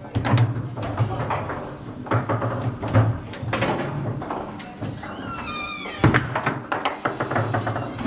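Foosball table in play: irregular sharp knocks and clacks as the ball is struck by the rod-mounted figures and hits the table.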